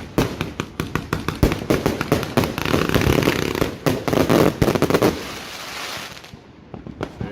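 A 260-shot King Flame fireworks cake firing a rapid run of sharp bangs and crackles. About five seconds in the shots thin out and nearly stop, with a few last pops near the end.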